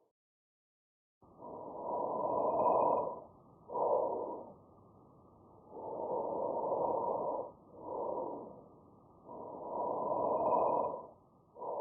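Normal lung sounds of steady breathing, heard through a stethoscope. After about a second of silence come three breaths, each a longer inhalation of about two seconds followed by a shorter exhalation.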